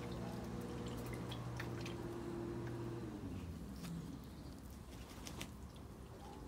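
Engine drone of a passing aircraft: a steady hum that drops in pitch about three seconds in as it goes by, then fades away. Scattered faint clicks sound throughout.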